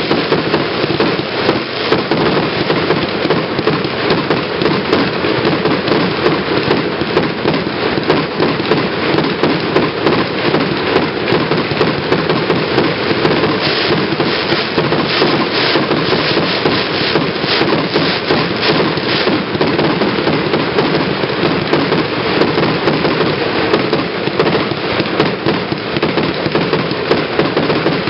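Multi-shot fireworks set firing continuously: a dense, unbroken run of launches and bursting stars crackling, with a spell of louder, sharper cracks about halfway through.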